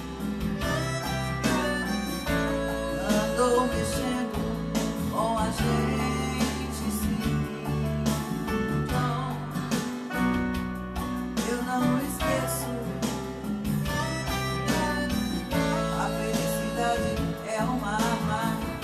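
A woman singing over a guitar-led backing track.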